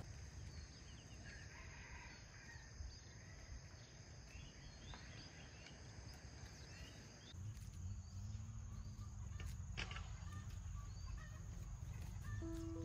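Faint farmyard ambience: chickens clucking and small birds chirping, over a thin steady high-pitched tone. A low rumble grows louder about halfway through.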